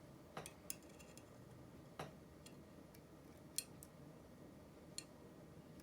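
Faint, scattered clicks and taps of small tools and metal parts as a tiny screw and the draw cord are worked into the side of an Oliver No. 3 typewriter's spring drum, about five clicks at irregular intervals over near-silent room tone.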